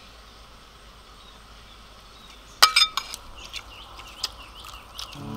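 Crunching of crispy batter-fried chicken strips being bitten and chewed: two sharp crunches about halfway through, then a run of smaller crackling crunches.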